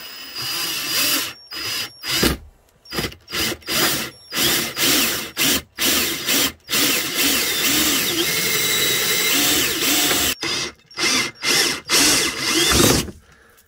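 Ryobi drill with a hole saw cutting through a plastic dashboard. It runs in many short on-off spurts, with one longer run of about three seconds after the middle.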